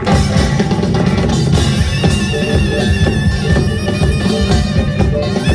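Live Korean samulnori percussion, dense and rapid, under a loud reedy wind instrument holding high sustained notes.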